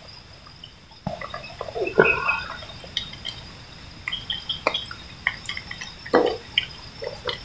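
Steady high chirring and evenly repeating chirps of night insects, with scattered small clicks and a few sharp knocks and clinks, the loudest about two seconds and six seconds in.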